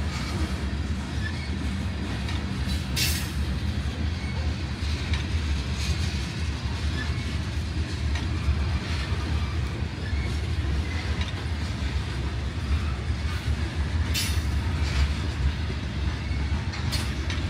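Covered hopper cars of a slow-moving CSX freight train rolling past, a steady low rumble of wheels on rail. A few brief sharp sounds stand out, about three seconds in and twice near the end.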